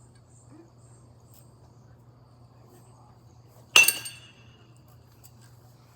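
A youth baseball bat striking a ball once, about four seconds in: a single sharp ping with a brief high ringing.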